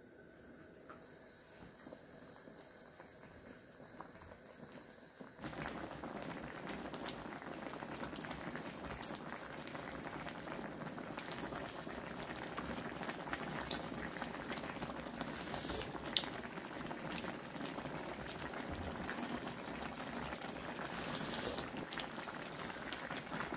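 Pork bulgogi hot pot boiling on a portable gas burner: a steady bubbling that starts abruptly about five seconds in, after a quiet stretch. A few light utensil clicks sound over it as the pot is served with a ladle and chopsticks.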